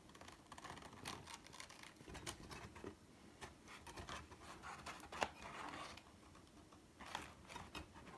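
Faint handwork sounds: irregular scratching, rubbing and small clicks of something being handled, with one sharper click a little past the middle.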